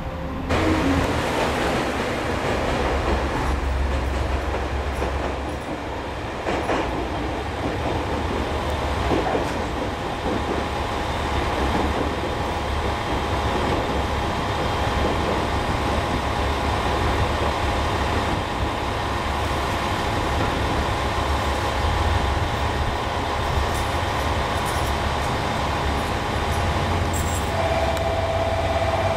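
Diesel railcars running in a station yard: a steady low engine rumble with wheel-on-rail noise and a few clicks. Near the end there is a steady high tone lasting about two seconds.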